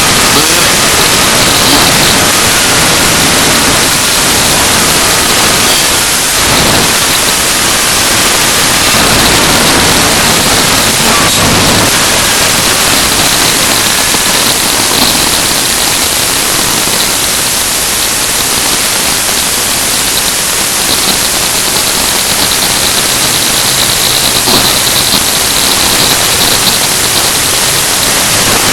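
Loud, steady static hiss filling the whole sound: a recording fault that masks everything else.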